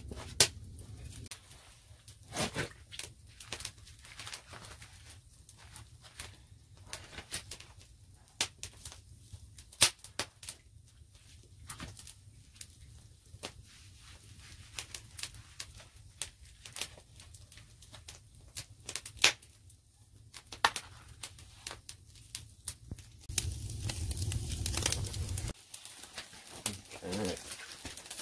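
Wood fire crackling in a stone fireplace, with irregular sharp snaps and pops. A low steady rumble runs underneath and cuts off suddenly near the end.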